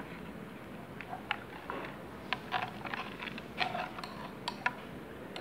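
Metal spoon stirring thick green mango pulp in a glass bowl, clicking lightly and irregularly against the glass, a few clicks a second.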